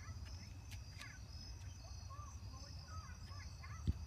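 Evening outdoor ambience: a steady, pulsing chorus of insects such as crickets, with birds chirping again and again over a low rumble. A single low thump just before the end.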